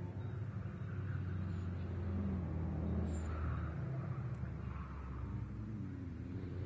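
Mitsubishi Lancer Evolution IX's turbocharged four-cylinder engine heard from trackside as the car is driven round the circuit, its pitch rising and falling with the revs, dipping about five seconds in and starting to climb again near the end.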